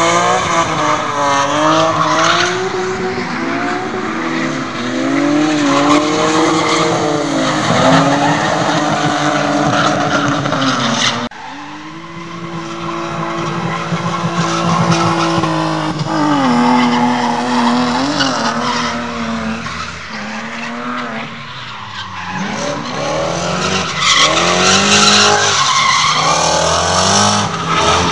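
Drift cars' engines revving hard, pitch rising and falling over and over, with tyres squealing as the cars slide sideways on the tarmac. The sound drops suddenly about eleven seconds in, then builds up again.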